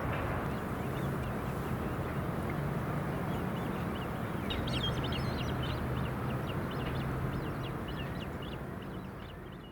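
Steady rushing outdoor background noise. From about halfway through comes a quick run of short, high bird chirps. Everything fades out at the end.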